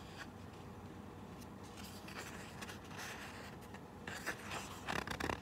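Paper pages of a picture book being turned and handled: soft rustling and rubbing, with a cluster of louder paper rustles about four to five seconds in.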